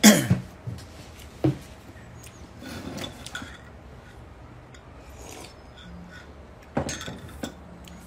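Small handling sounds of a ceramic mug: a few sharp knocks and light rubs, with a soft sip from it about three seconds in. A short, loud voice-like sound at the very start is the loudest thing.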